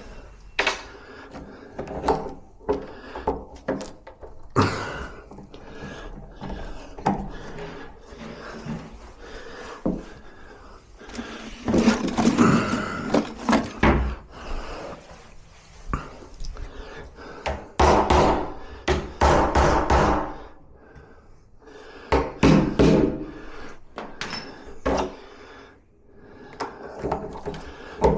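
Knocks and taps of tools working on a wooden door while a door latch is fitted, broken by several longer spells of rough scraping or grinding.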